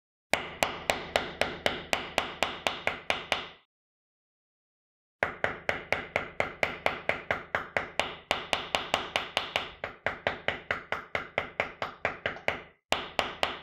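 Rapid metallic taps of a mallet on a metal snap setter, about four a second: a run of about three seconds, a pause of about a second and a half, a longer run of about seven seconds, then a few more taps near the end. This is a snap cap being set through a leather strap on an anvil, hit straight down and then around in a circle to spread the post evenly.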